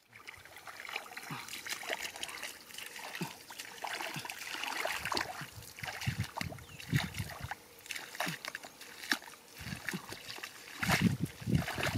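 Hands and feet splashing and squelching in shallow, muddy water. The short wet splashes come in an irregular run and grow louder and heavier near the end.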